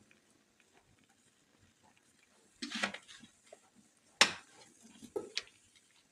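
A quiet stretch broken by a few soft knocks and one sharp click about four seconds in: handling sounds around a clay cazuela set over a wood fire.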